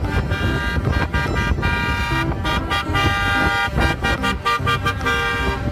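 Vehicle horn sounding a string of short and held notes, each a steady multi-tone blast with brief breaks between, over a low rumble.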